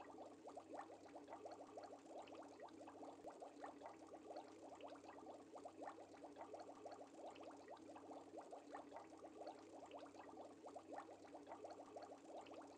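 Faint, steady aquarium bubbling: a dense stream of small bubbles popping and gurgling, over a faint low hum.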